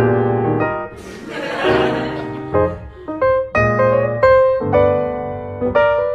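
Piano music playing a run of changing chords, with a short burst of noise about a second in.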